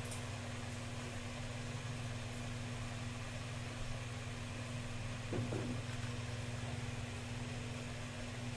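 A steady low hum from a running machine or appliance, with one brief short sound about five seconds in.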